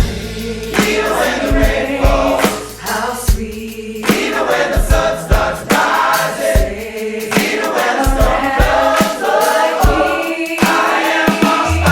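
Large mixed choir singing a gospel-style arrangement over a steady beat with bass.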